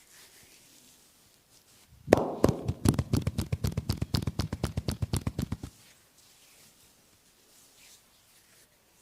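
Hands striking the back in quick percussive massage strokes (tapotement), about six strikes a second for three and a half seconds, starting about two seconds in and stopping abruptly.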